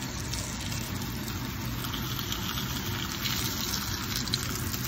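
Dumplings frying in oil in a cast-iron skillet: a steady sizzle with fine crackles over a low hum.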